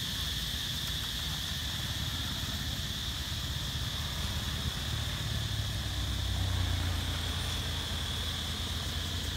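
Steady high-pitched insect drone, with a low rumble underneath that swells for a few seconds in the middle.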